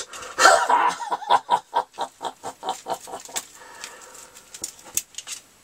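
A man's cackling villain laugh in a Freddy Krueger impression: a quick run of short "ha" pulses, about five a second, starting about half a second in and fading out over some three seconds.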